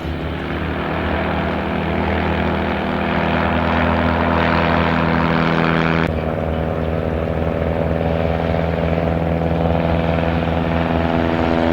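Propeller-driven light plane's piston engine running at takeoff power, a steady drone that grows louder over the first few seconds; the tone shifts abruptly about six seconds in.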